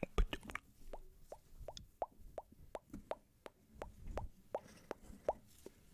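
Wet ASMR mouth sounds close to the microphone: a slow, even run of wet tongue-and-lip clicks, about three a second, each a short pop with a slight upward pitch.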